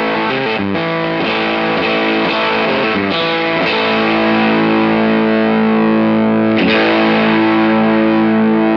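Electric guitar played through a KingTone MiniFuzz v2 fuzz pedal, with thick, distorted fuzz tone. A few quick changing notes come first; from about four seconds in a chord is held and sustains steadily.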